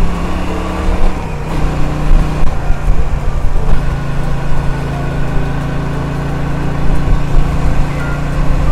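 Cruiser motorcycle's engine running steadily while being ridden. Its note drops a little about a second and a half in, then holds even.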